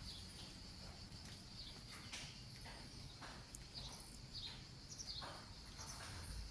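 Faint outdoor ambience: short scattered bird chirps over a steady high-pitched insect drone.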